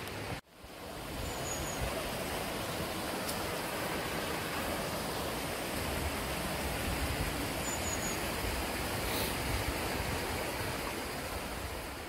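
Rocky mountain stream rushing over boulders, a steady rush of water that cuts out briefly just under half a second in. Two short high chirps sound over it, one early and one about eight seconds in.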